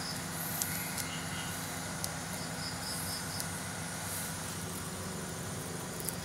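Crickets chirping in short trains of quick, high pulses, three times, over a steady low hum and hiss, with a few faint clicks.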